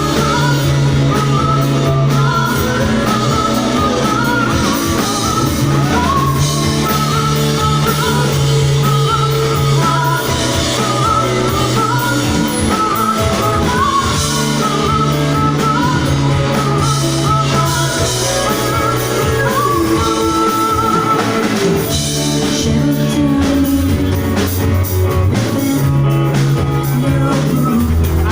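A rock band playing live: guitars, bass and drums, with a wavering sung melody over a bass line that changes note every few seconds.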